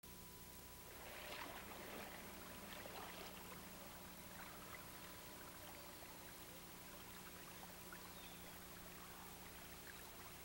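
Near silence: faint steady hiss with a constant low electrical hum, the background noise of an old videotape recording.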